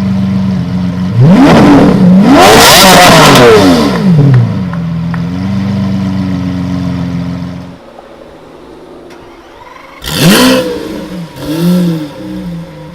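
A supercar engine idling, then revved hard twice in quick succession about a second in, the pitch climbing and falling back to idle. Later come two shorter, sharp throttle blips.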